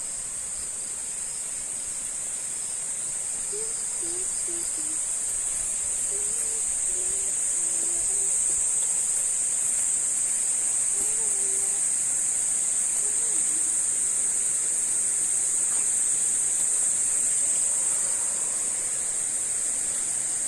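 Steady high-pitched insect chorus, shrill and unbroken, with a few faint short calls in the distance in the first half.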